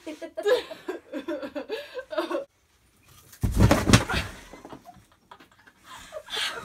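Girls giggling and laughing, with a short loud burst of noise a little past halfway.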